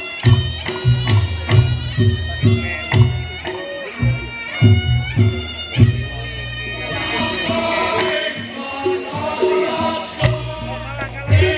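Reog Ponorogo ensemble music: a slompret (a Javanese shawm) plays a reedy, wavering melody over steady kendang drum beats. The drums drop out for a few seconds around the middle and come back near the end.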